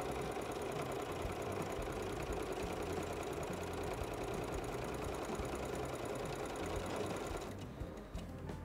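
Singer Patchwork 7285 sewing machine stitching steadily at speed through two layers of fabric and felt, stopping near the end.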